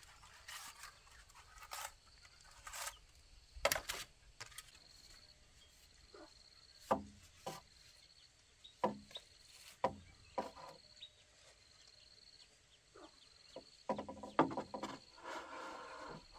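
Dry bamboo poles knocking and rattling against one another as they are handled, a string of separate knocks with a quick cluster of rattles near the end. An insect chirps in a steady repeating pattern underneath.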